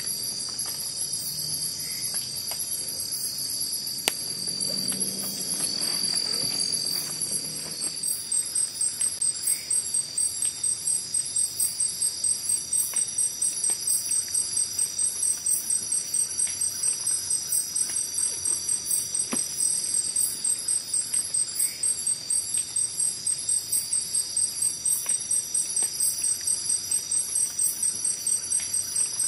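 Chorus of night insects, crickets and the like, with several steady high-pitched trills. About eight seconds in, a louder insect joins, calling in a rapid pulse about three times a second.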